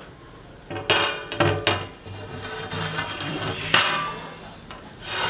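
Metal lid of a tandoor being lifted off and shifted against the rim and iron bars, with several sharp metallic clanks and some scraping.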